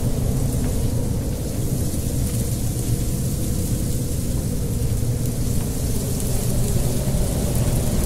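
Strong wind buffeting the microphone: a steady low rumble, with a high hiss of wind in the trees and leaves.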